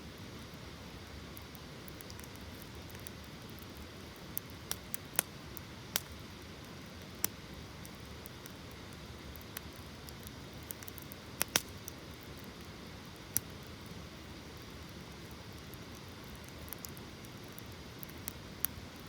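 Wood campfire crackling: a steady low hiss with scattered sharp pops, a few at a time, the loudest a quick double pop about halfway through.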